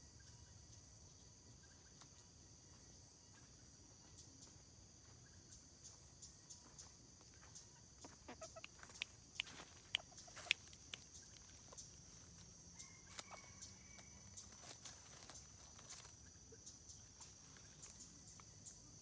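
Junglefowl hen giving short, sharp cackling 'kek-kek' calls, the call a female uses to summon a male. The calls come in clusters, loudest in the middle, over a steady high drone of insects.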